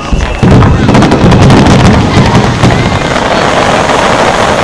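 Fireworks bursting low over the sea, among them underwater fireworks opening at the water's surface. A deep boom comes about half a second in, then dense crackling and popping from the stars.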